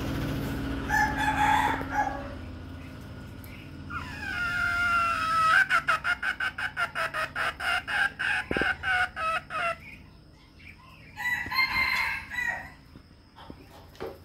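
Rooster crowing: a long drawn-out crow that rises at the start and holds with a rapid warble for about six seconds, with shorter chicken calls about a second in and again near the end.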